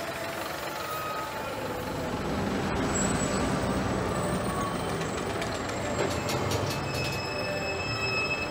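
Steady engine and road noise of a city bus heard from inside the cabin, with faint high whining tones over it, more of them near the end.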